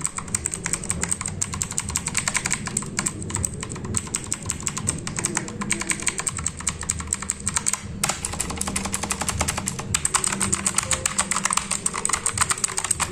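HP GK200 mechanical keyboard typed on quickly, a dense run of key clicks with a brief break about eight seconds in.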